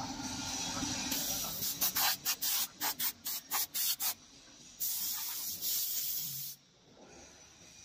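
Hydraulic interlocking clay brick making machine running with a steady hum, then a rapid run of about nine short hisses and one longer hiss, which stops suddenly near the end.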